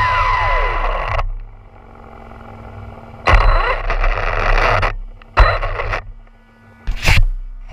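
Arrma Fazon BLX 6S RC car's brushless motor whining down in pitch as the car slows, cutting off about a second in. Two short bursts of acceleration follow, with rising whine and noise, at about three and a half and five and a half seconds in, then a sharp knock near the end.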